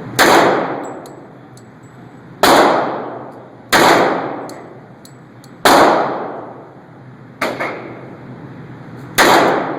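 Six .45-calibre handgun shots fired one at a time, about every one and a half to two seconds, each with a long echoing decay; the fifth is weaker than the rest.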